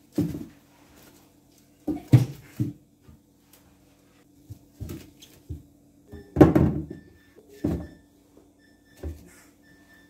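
Vegetables being handled and set into a plastic refrigerator crisper drawer: a series of irregular knocks and bumps of produce and plastic, the loudest about six and a half seconds in.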